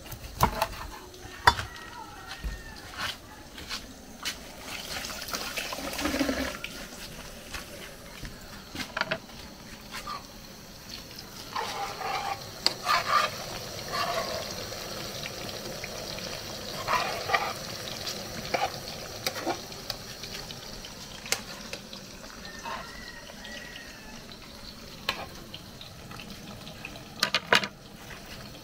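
Plantain slices frying in oil in a metal pan, a steady sizzle with scattered clinks and knocks of a spoon against the pan.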